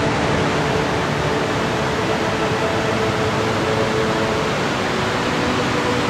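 Steady rush of a wide waterfall spilling over a mossy cliff into a rocky river, a loud, even roar of falling and tumbling water.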